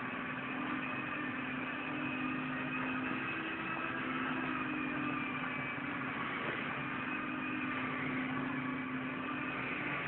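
A steady mechanical hum from a running machine: a constant low drone with a fainter high whine, unchanging throughout.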